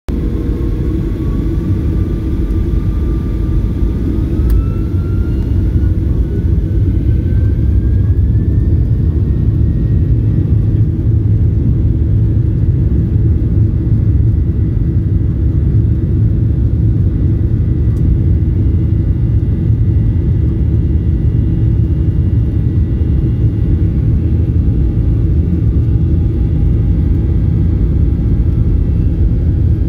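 Boeing 737-900's CFM56-7B turbofan engines heard from the cabin over the wing, spooling up for takeoff: a loud, deep, steady rumble with a whine that rises in pitch over the first ten seconds or so, then holds steady as the jet rolls down the runway.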